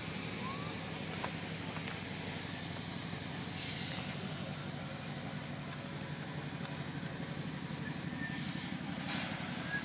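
A steady, low mechanical drone of an engine running, with a few faint short chirps over it.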